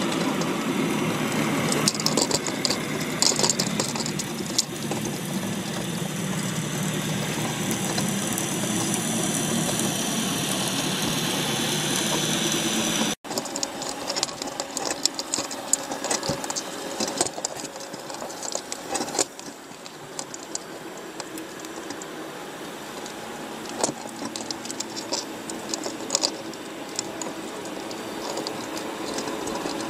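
Underwater recording inside a wire crab trap: a steady mechanical hum with many short clicks and scrapes as the crabs' shells and legs knock against each other and the wire. The hum is louder in the first part, the sound drops out briefly about 13 seconds in, and the clicking grows denser afterwards.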